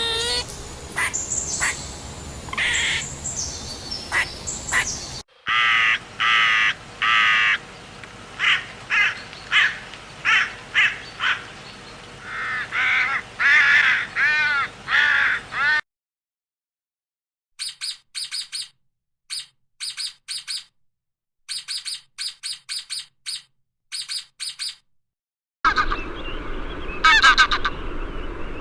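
A string of different bird calls, one recording cut straight into the next. First a mix of calls, then about ten seconds of repeated harsh calls. Then thin, high chirps in short groups against dead silence, and finally another burst of calling near the end.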